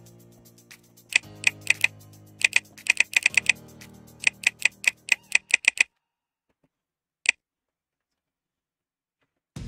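Fast typing on a computer keyboard, about two dozen key clicks over the first six seconds as a password is entered, then silence broken by a single key press about seven seconds in.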